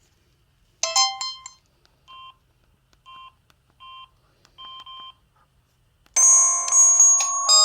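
Samsung SGH-C260 clamshell phone's built-in sounds. A short electronic chime comes just under a second in, then four short, quieter keypad beeps at uneven intervals. About six seconds in, a loud polyphonic Yamaha SMAF ringtone starts playing through the phone's small speaker.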